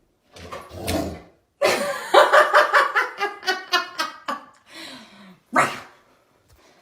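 A person laughing: a run of quick 'ha-ha' pulses, about five or six a second, lasting some three seconds, with shorter laughs before and after.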